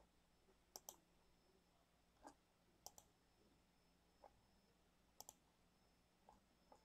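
Faint clicks of a computer mouse button, repeatedly clicking a web page button. The sharpest come about every two seconds, each a quick press-and-release pair, with fainter single ticks between them.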